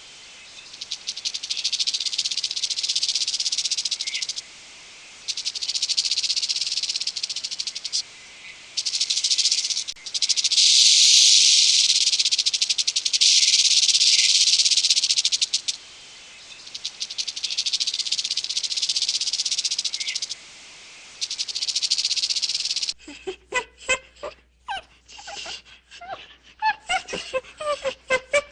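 A high-pitched buzzing rattle from an animal, in long bursts of several seconds separated by short pauses. About 23 s in it gives way to a run of short, separate calls.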